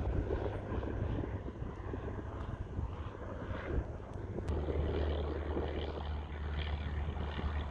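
Airplane engine running, a steady low drone with noise over it that grows stronger about four and a half seconds in.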